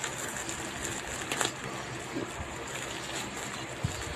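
Hands working at a parcel wrapped in lots of packing tape, trying to get it open: steady rustling and scraping of the plastic wrapping and tape, with a sharp crinkle about a second and a half in and a soft knock near the end.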